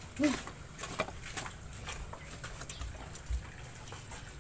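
Rabbits moving about in a hutch while being stroked by hand: faint scattered clicks and rustles, with a few soft low thumps near the middle.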